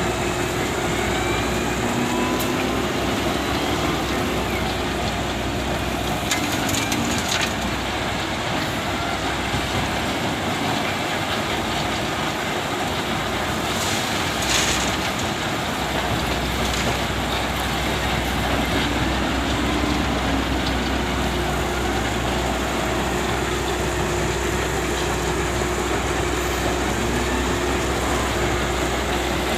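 Diesel engine of an SDLG loading machine running steadily while it loads a dump truck, with a couple of brief knocks about a third and halfway through.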